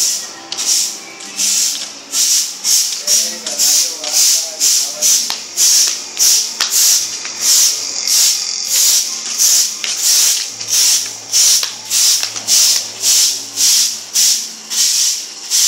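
Broom sweeping a concrete floor in steady strokes, a regular swish about twice a second.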